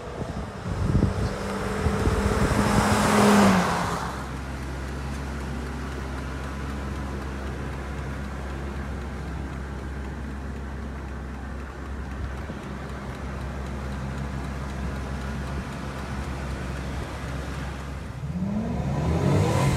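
2003 Ford F350's 6.8-litre gas V10 driving past with its tyres hissing on wet pavement, the engine note dropping in pitch as it goes by. It then idles steadily, and near the end it revs up and back down.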